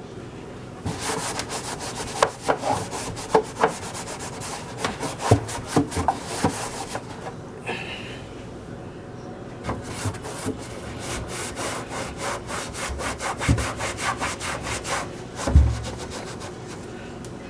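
Rapid back-and-forth scrubbing of grease softened by oven cleaner off a metal stove range hood, starting about a second in. The scrubbing pauses briefly near the middle, then resumes, with a dull knock near the end.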